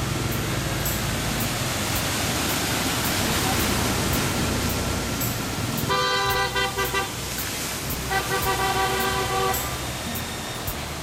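Vehicles ploughing through knee-deep floodwater on a street, a steady wash of splashing water and engine hum. About six seconds in a vehicle horn honks, and a second, longer honk follows about two seconds later.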